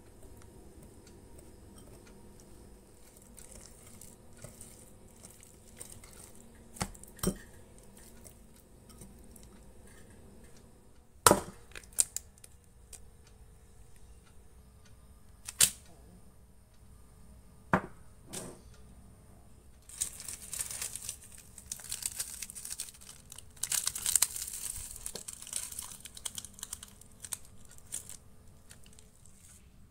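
A wire whisk working butter and sugar in a ceramic bowl, with a few sharp knocks against the bowl around the middle. In the last third, a foil coffee sachet is crinkled and torn open.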